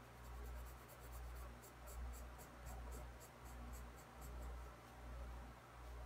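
Pencil scratching on sketchbook paper in quick short hatching strokes, about five a second, as shading is laid in. The strokes stop about four and a half seconds in.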